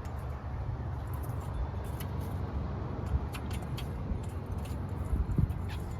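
Scattered light metallic clicks and clinks of a tool unscrewing an oxygen sensor from a Honda Civic's turbo exhaust, over a steady low background rumble.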